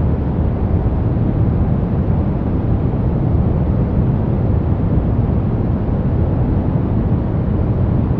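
Soft brown noise: a steady, deep rushing hiss with its weight in the low end and little treble, unchanging throughout.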